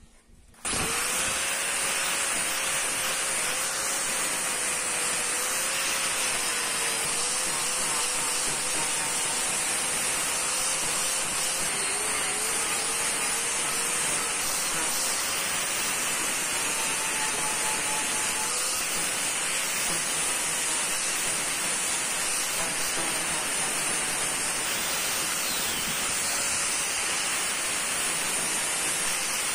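Electric angle grinder switched on about half a second in and running steadily, its abrasive disc rough-grinding a knife blank of annealed 5160 spring steel. The motor whine wavers and dips now and then as the disc is pressed into the metal.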